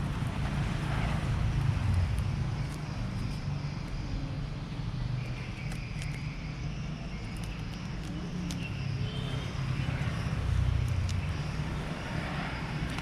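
Steady low background rumble, with a few faint scattered clicks and faint distant voices.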